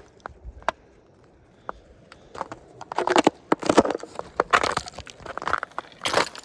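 Footsteps crunching on icy snow: a few faint crunches in the first two seconds, then a run of loud, irregular crunching steps.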